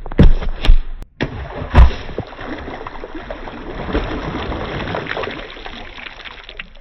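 Three heavy knocks, then a steady crackling rustle, typical of a boxed toy and its plastic packaging being handled during unboxing.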